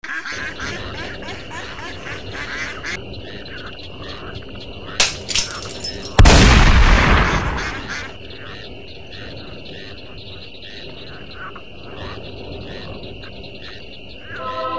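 Marsh ambience of frogs croaking over a steady high insect drone. About six seconds in, a few sharp clicks are followed by a single loud shotgun blast that rings out and fades over about two seconds.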